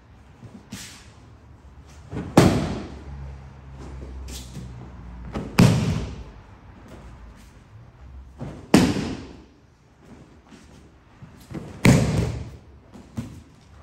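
Aikido partner thrown backward again and again in seated kokyu-dosa, his body and arms slapping the mat in breakfalls. There are four loud slaps about three seconds apart, with lighter knocks in between as he rolls back up.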